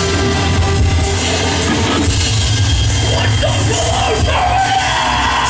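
A heavy rock band playing live on stage: drum kit and distorted electric guitars, with a singer's voice coming in about halfway through.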